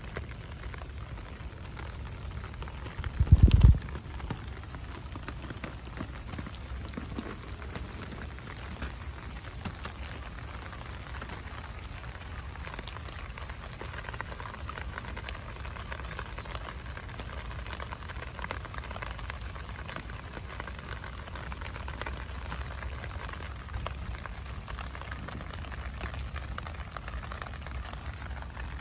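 Heavy rain falling steadily on shrubs and the ground, a constant hiss with scattered drop ticks. About three seconds in there is a brief loud low thump.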